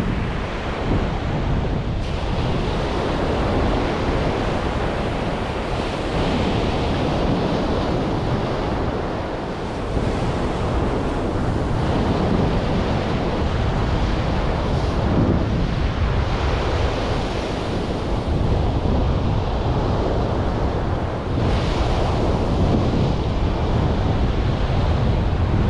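Surf washing onto a beach, with wind buffeting the microphone: a steady rushing noise with a heavy low rumble.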